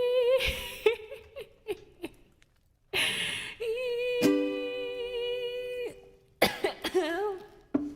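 A ukulele played with a woman's long held sung notes with vibrato, ending a song. The chords ring out into a brief near-silent pause. A short breathy rush of noise follows, then another held note over a strummed ukulele chord, then a few plucked notes with soft humming near the end.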